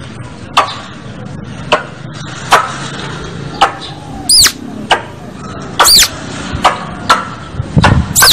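Squirrel (tupai) calling: sharp, sudden chip calls about once a second, with two longer high-pitched calls that rise and fall, about four and six seconds in. A low rumble comes in near the end.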